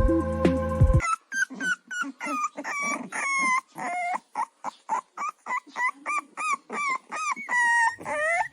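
Music, then after about a second a puppy whimpering and yipping in quick, high-pitched calls that rise and fall in pitch, about three a second.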